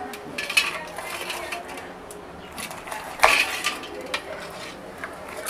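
Knife and metal dishes clinking and tapping while gar fish are cut and scored, with one louder knock about three seconds in.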